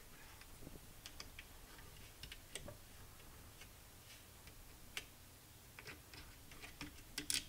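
Faint, scattered clicks and ticks of a hex key working a screw in a 3D printer's plastic print-head housing, with a slightly sharper click about five seconds in and a few quick clicks near the end.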